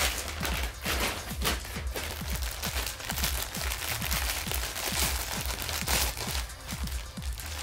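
Clear plastic mailer bag crinkling and crackling in a dense, uneven run as hands handle it and open it to get at a t-shirt inside.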